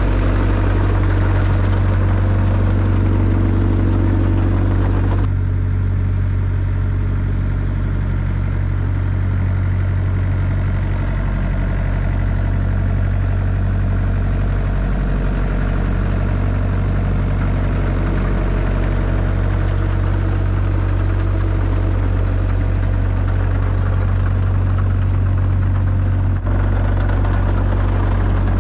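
Diesel engine of a Caterpillar 307 SSR excavator running steadily with a deep hum, a rising tone in the first few seconds. The sound changes abruptly about five seconds in and again near the end.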